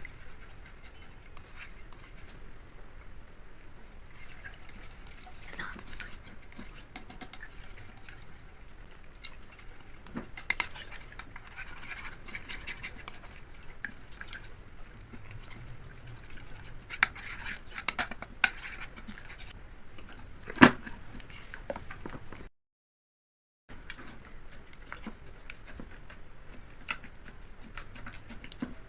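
Slime being squished and worked by hand: a continuous wet, sticky crackling made up of many small clicks and pops, with one sharper snap about two-thirds of the way through and a brief dropout to silence shortly after.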